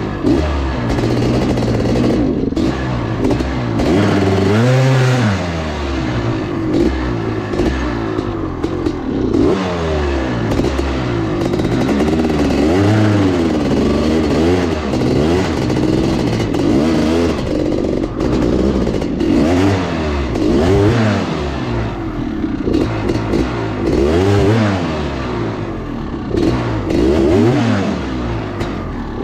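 Honda CR500 single-cylinder two-stroke dirt bike engine revving up and down repeatedly with the throttle while riding over rough ground, with knocks and clatter from the bike over rocks.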